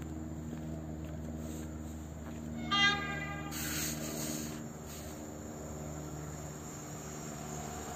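Approaching Pesa Elf electric multiple unit (EN76) running with a steady electric hum. About three seconds in it gives one short, high toot on its horn, followed by a brief hiss.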